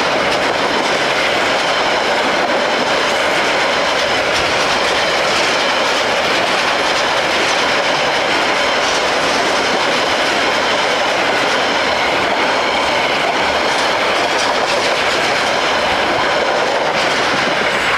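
A train rolling past at a steady speed: a continuous rumble and clatter of steel wheels on the rails, with no horn sounding.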